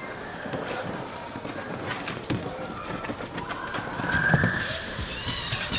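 Indoor play-area hubbub: children's voices and shouts echoing in a large hall, with scattered knocks. A wavering high-pitched sound starts near the end.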